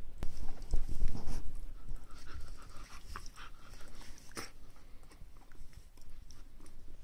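Kuvasz puppy panting and snuffling close to the microphone, loudest in the first second or two. There is a single sharp click about four and a half seconds in.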